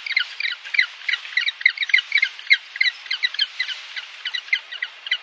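Penguins calling: a rapid, overlapping run of short squawks, several a second, each a quick falling note.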